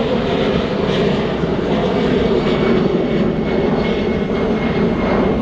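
Departing EasyJet Airbus A320-family jet airliner climbing out under takeoff power, its engines making a loud, steady rattling noise.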